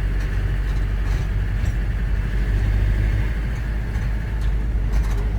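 A vehicle driving, its engine and road noise making a steady low rumble.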